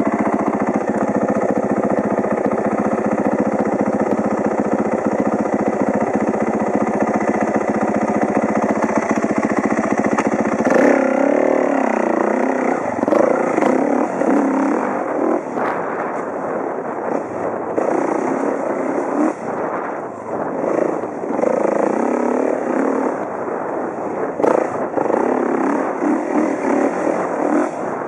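2011 Kawasaki KX450F's single-cylinder four-stroke engine under way, heard from a helmet-mounted camera. It runs at a steady pitch for about the first ten seconds, then revs up and down again and again as the throttle is worked on the trail.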